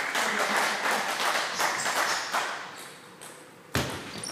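Spectators applauding a point in table tennis, the clapping dying away over the first two and a half seconds or so. Near the end, a single sharp knock of a table tennis ball as a new rally starts.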